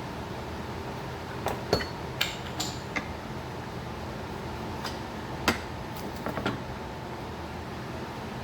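A scatter of light, sharp knocks and clinks of hard objects being handled, in two clusters about a second and a half in and about five seconds in, over a steady background hum.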